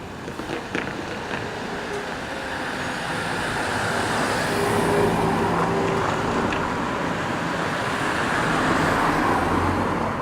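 Electric train passing over a level crossing: a rolling rumble that builds over the first few seconds and holds loud to the end, with a faint steady hum in the middle.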